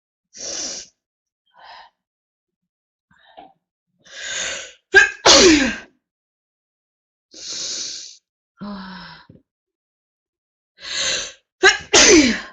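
A woman sneezing twice, about five seconds in and again right at the end. Each sneeze is led by a breathy intake and a short sharp catch, then breaks into a loud burst with a voiced cry falling in pitch. Quieter breaths come between the sneezes.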